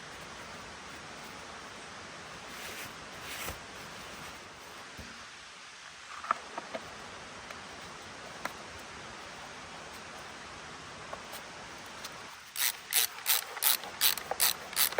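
Faint steady hiss with a few light clicks. Then, starting near the end, a hand tool works on an old chainsaw in quick, evenly spaced rasping strokes, about three or four a second.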